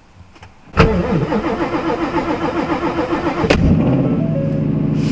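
Ford Mustang GT's 5.0-litre V8 cold-starting in about −20 °C cold: it catches about a second in with a loud flare and runs a little rough and uneven for a few seconds, then settles into a steady idle.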